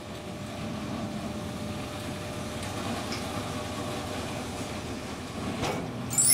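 Steady diesel engine and hydraulic hum of a scrapyard material handler as its grapple lifts a breaker tank off the trailer, with a single knock about five and a half seconds in. A bright cash-register-style ding starts right at the end.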